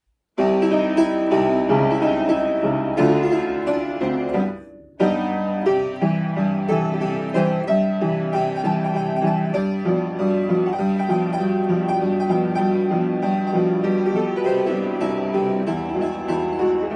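Upright piano playing a medley of children's animal songs, starting about half a second in, with a brief pause about five seconds in before the playing resumes.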